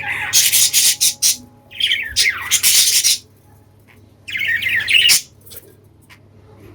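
Budgies calling in three bouts of harsh, raspy squawks mixed with chirps, with short quiet gaps between them.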